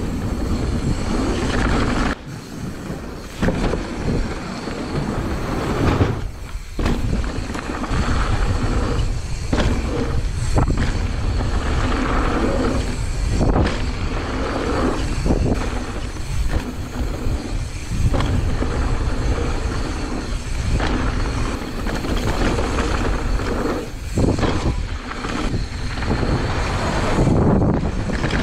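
Mountain bike ridden fast down a dirt and gravel enduro trail, heard from a camera mounted on the handlebars: a steady, loud rumble and rattle of tyres and bike over the rough ground, with a few brief dips in level.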